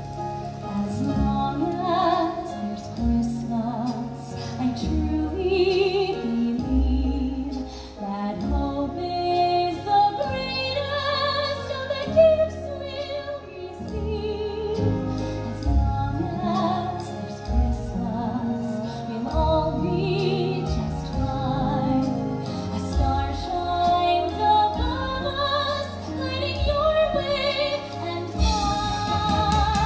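Music with a woman singing long, operatic notes with a wide vibrato over a steady accompaniment.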